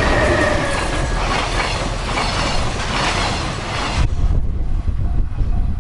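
JR Freight EF510 electric locomotive passing close at speed, its wheels clattering on the rails under a loud rush of noise. The rush cuts off suddenly about four seconds in, leaving a low rumble, and a level crossing bell is heard ringing again near the end.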